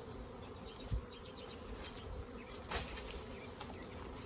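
A mass of honey bees buzzing steadily around an open hive box, the colony stirred up and flying thickly. A soft thump about a second in and a brief rustle near three seconds in.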